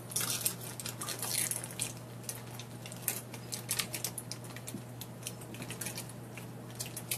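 Crinkling and crackling of a small plastic blind bag being torn open by hand, a run of short sharp crackles that comes and goes.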